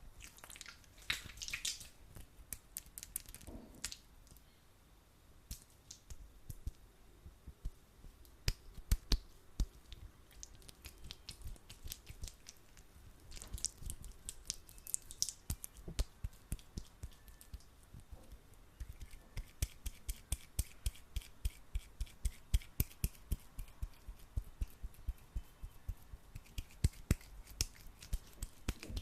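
Hands rubbing and squeezing sticky aloe vera gel, giving wet clicks and pops that come irregularly at first and settle into a quick run of several a second in the second half.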